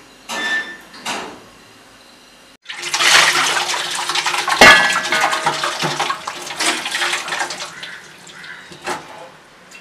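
Water running with dishes and utensils clattering. It starts suddenly about two and a half seconds in, has one sharp ringing clink partway through, and fades out over the last couple of seconds.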